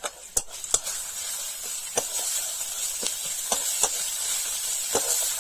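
Onion and spice masala sizzling in oil in a steel wok, with a metal spatula clinking and scraping against the pan as it is stirred, about six sharp clicks. The sizzle strengthens about half a second in.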